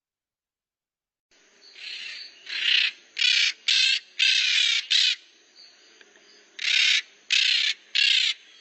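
Maritacas (Pionus parrots) making noisy, rasping calls: about nine short screeches in quick succession, starting a little over a second in, with a pause of about a second and a half near the middle.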